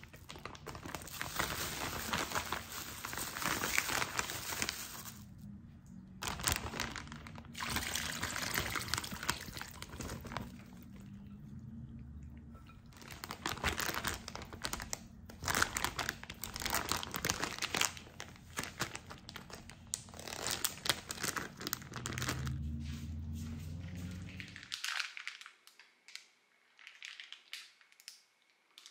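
Irregular crinkling and rustling from hands-on food preparation, coming in uneven spurts, over a low steady hum that cuts off about 25 seconds in.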